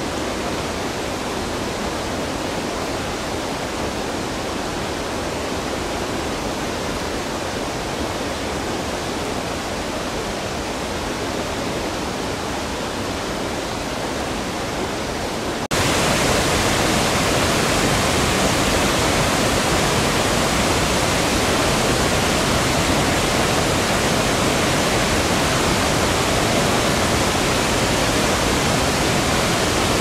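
Steady rush of a rain-swollen mountain stream. About halfway through it cuts suddenly to a louder, brighter rush of water pouring over a wide weir.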